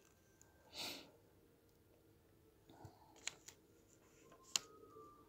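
Near-silent room tone, broken by a short breathy puff of noise about a second in and two sharp clicks later on.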